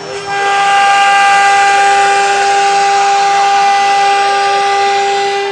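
CNC router spindle running with a steady high whine while the bit cuts wood, over a hiss of cutting noise. It gets louder about a quarter second in, then holds steady.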